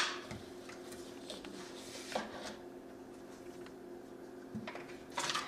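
A plastic scoop being dug into a tub of whey protein powder and lifted out. There is a sharp knock right at the start, then faint scrapes and taps over a steady low hum.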